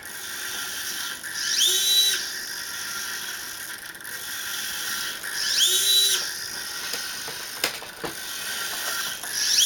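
Gearboxed servo motors driving a robot hexapod's prototype leg, whining as the leg runs through its demo motion. There are three short whines about four seconds apart, each rising in pitch and then holding, with a faint click near the end.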